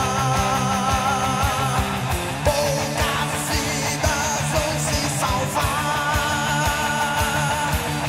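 Mid-1980s heavy metal recording: distorted electric guitars and fast, driving drums, with a held, wavering melody line over the top.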